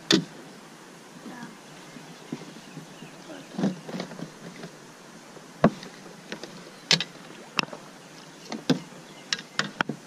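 Scattered knocks and clatters as a landing net and paddle are handled against a plastic kayak hull, with several quick knocks near the end.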